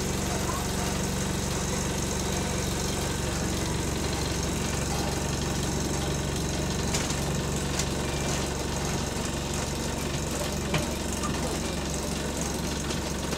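Engine of bus GAL SE92 heard from inside the passenger saloon: a steady low drone at idle that changes as the bus pulls away about five seconds in, with a few light rattles from interior fittings shaken by the engine.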